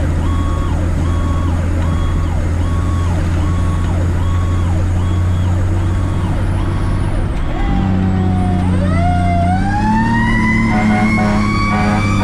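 Fire truck responding under siren, its diesel engine droning underneath. An electronic siren repeats a short cycle, and about seven seconds in a second siren starts winding up, its pitch rising steadily.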